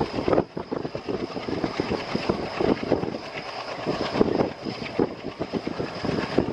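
Passenger train running, heard from on board a coach: a dense, irregular clatter and rattle of wheels over the track.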